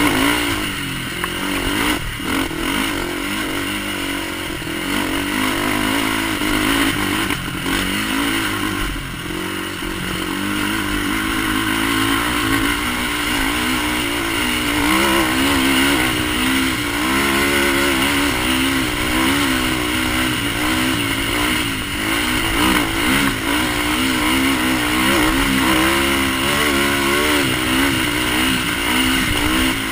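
Polaris Outlaw sport quad's single-cylinder four-stroke engine running hard at race speed, its revs rising and falling over and over as the throttle is worked.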